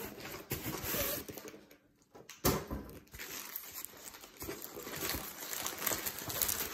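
Hands opening a cardboard box and unrolling a diamond-painting canvas from its paper wrap: the paper rustles and crinkles, with a short pause about two seconds in and one sharp tap just after it.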